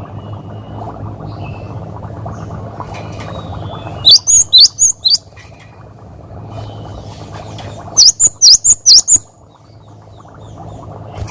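Cinereous tit (gelatik batu) singing: two loud bursts of sharp, quickly sweeping whistled notes, about five notes about 4 s in and six notes about 8 s in, over a steady low background noise.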